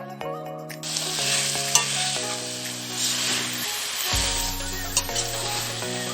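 Marinated mutton pieces frying with potatoes in hot oil, sizzling loudly as they are stirred in the pan, with a few sharp clicks of the spatula against the pan. The sizzling starts about a second in.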